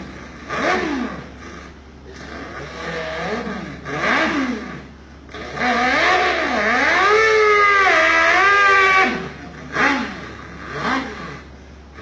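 A man imitating a Volkswagen's engine with his mouth. A few short revs come first, then a long run of about three seconds whose pitch climbs and drops again and again, like quick gear changes. Two short blips follow near the end.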